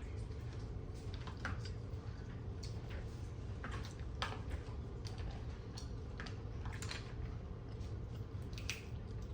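Close-up eating of mussels and shrimp: chewing with irregular wet smacks and sharp clicks, over a steady low hum.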